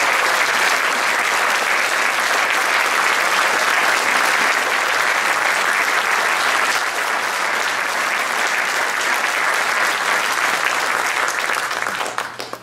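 Audience applauding steadily, the clapping dying away quickly near the end.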